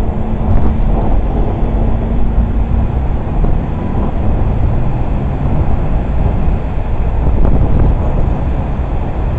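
Wind buffeting the microphone: a loud, steady rumble, with the hiss of splashing fountain water behind it.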